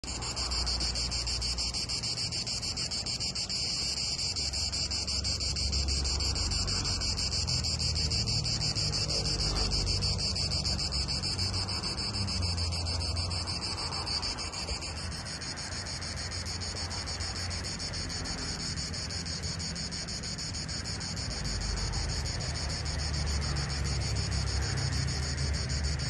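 A steady, dense buzzing chorus of insects in sunny pine trees, high-pitched and finely pulsing, shifting slightly about halfway through. Wind rumbles on the microphone underneath.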